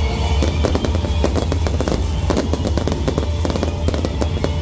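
Fireworks crackling and popping in quick, irregular succession as sprays burst overhead, over music with a steady deep bass.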